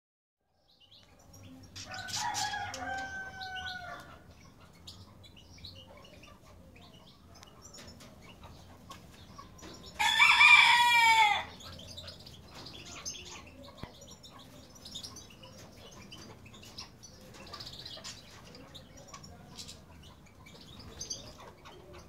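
A rooster crows twice: once about two seconds in, then louder and closer near the middle, the call falling in pitch at its end. Faint small ticks and chirps come between the crows.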